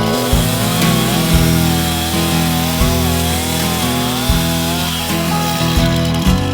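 Background music with a steady beat, with a two-stroke chainsaw cutting wood beneath it. The saw's engine pitch wavers up and down under load for about five seconds, then fades under the music.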